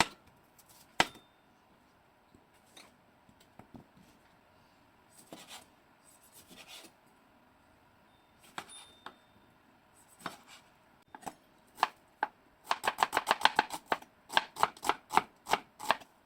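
Kitchen knife striking a cutting board: scattered single cuts, then a fast run of chopping strokes for the last few seconds.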